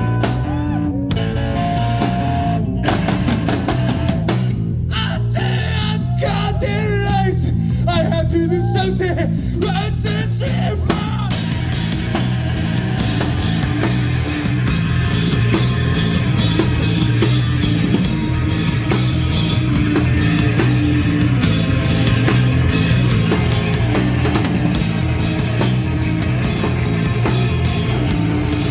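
Live rock band playing, with electric guitar and drum kit; the sound grows fuller and denser about halfway through.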